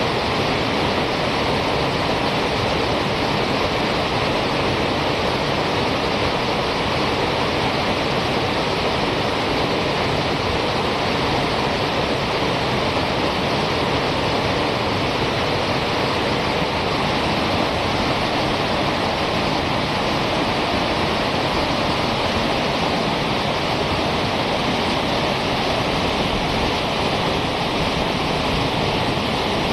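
Whitewater rapids rushing, a steady, unbroken noise of churning water.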